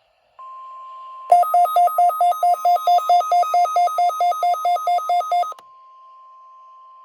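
Weather radio warning alarm tone test: a steady high tone starts about half a second in and holds to the end. From just over a second in until about five and a half seconds, a rapid pulsing electronic alert beeps over it at about five pulses a second, then stops suddenly.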